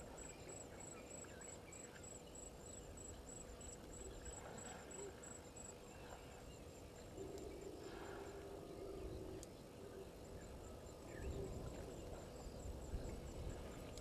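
Bush ambience at a waterhole: insects chirp in a steady high pulse of about three a second, which stops before the middle and comes back faintly later. An animal call of about two seconds sounds near the middle, with further low calls in the second half.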